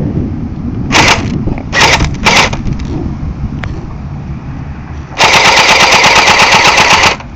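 Airsoft gun firing: three short bursts in the first two and a half seconds, then a continuous burst of rapid automatic fire lasting about two seconds.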